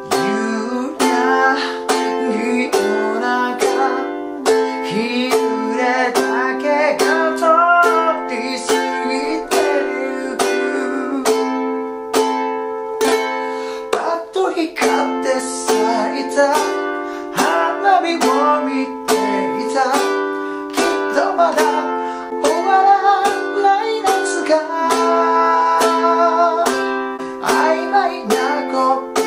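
A man singing in Japanese while strumming a ukulele in a steady rhythm, moving through the chords F, G7, Am and C.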